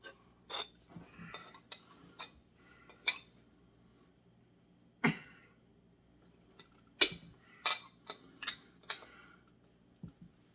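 Knife blade clicking and scraping against the metal crown cap of a glass soda bottle as the cap is pried at, in scattered sharp clicks with short scrapes between them, the loudest about five and seven seconds in.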